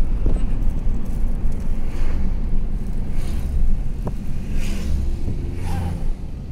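Car driving along a road, heard from inside: a steady low rumble of engine and road noise, with a few brief whooshes of passing air.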